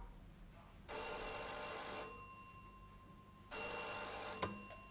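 An old desk telephone's electric bell ringing twice, each ring about a second long; the second ring stops suddenly with a clunk as the receiver is lifted to answer.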